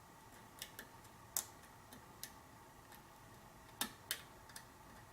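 Light metallic clicks of a lock pick working the pins of a pin-tumbler challenge lock during single-pin picking, about eight irregular ticks, the loudest a little over a second in and near four seconds in.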